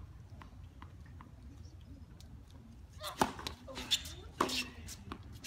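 Tennis ball struck with rackets in a rally: sharp, separate pops spaced about a second or less apart, starting about three seconds in. Before that come only a few faint ticks.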